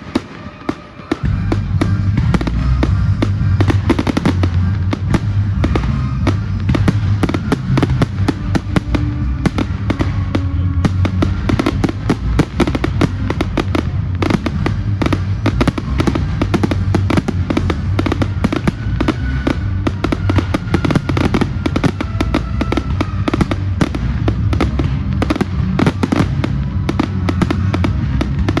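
Fireworks display in a rapid, continuous barrage: dense overlapping bangs and crackles over a deep rumble, starting about a second in and going on without a break.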